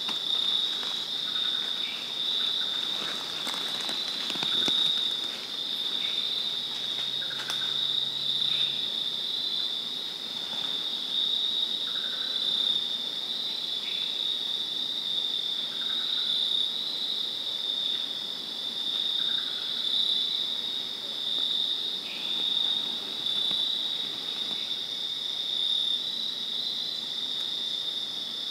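Evening insect chorus, a steady high-pitched pulsing trill, with softer lower calls repeating about every two seconds and a few faint clicks in the first several seconds.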